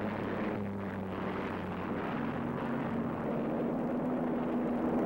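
Unlimited hydroplane's piston V-12 aircraft engine running at speed in a steady drone over the rush of the hull on the water. Its pitch steps up slightly about halfway through.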